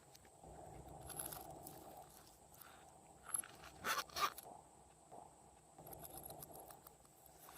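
Clear slime being mixed and kneaded by hand, with soft squishing and a few sharp clicks and crackles, the loudest about four seconds in.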